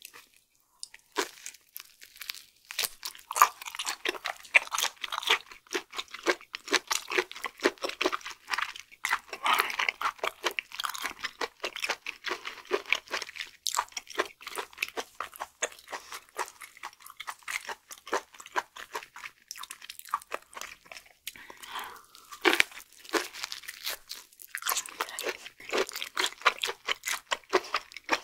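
Close-miked chewing of firm, chewy raw flatfish sashimi, a dense run of irregular mouth clicks and bites that starts about a second in.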